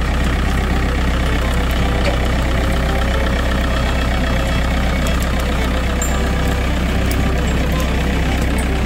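Diesel engine of a 1981 Case 995 David Brown tractor running steadily at a constant speed.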